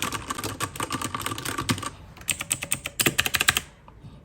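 Typing on a MageeGee 60% mechanical keyboard with Otemu box switches: rapid key clicks in two runs with a short pause between, stopping shortly before the end.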